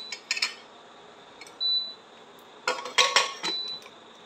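Metal clinks and clanks of a pressure cooker lid being fitted onto the pot and closed, in two short clusters. Three short high beeps, roughly two seconds apart, sound among them.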